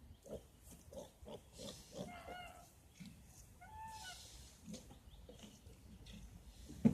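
Piglets grunting in quick short bursts, with two brief higher-pitched calls in the middle, and a sharp knock right at the end.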